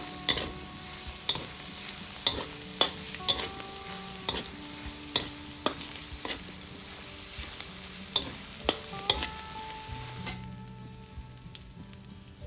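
Pork and vegetables stir-frying in a hot pan, sizzling steadily, with the spatula clacking and scraping against the pan every half second or so. The sizzling drops away sharply near the end.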